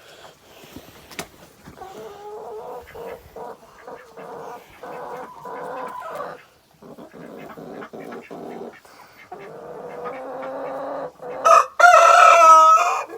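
Hen on her nest, disturbed, clucking in quick rhythmic runs of calls. Near the end she gives a few louder, higher calls, the loudest sound here.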